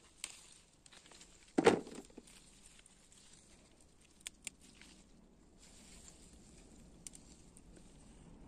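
Pepper plant leaves and stems rustling as peppers are picked by hand, with one loud thump about one and a half seconds in and a few light snaps or clicks after it.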